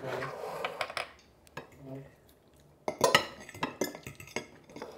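Metal forks and a serving spoon clinking and scraping against ceramic plates and bowls while people eat. The sharp clinks bunch together a little after halfway.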